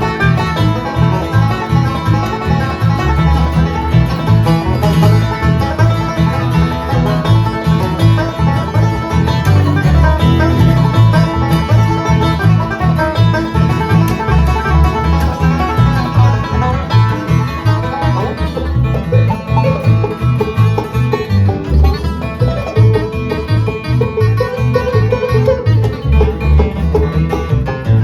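Live acoustic bluegrass band playing a fast instrumental tune, banjo picking to the fore over guitar rhythm and a steady, even bass pulse.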